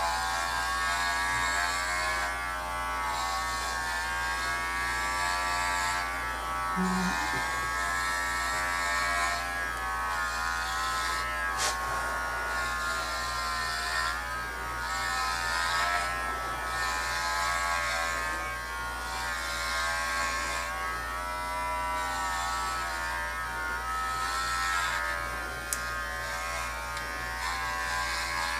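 Cordless electric dog clippers running steadily as they shave through a dog's coat, a continuous hum that wavers slightly in pitch as the blades meet the hair.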